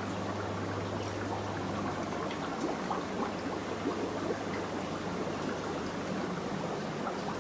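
Steady trickling and splashing of water circulating through rows of aquarium tanks, over a low hum that eases about two seconds in, with a few faint clicks a little past halfway.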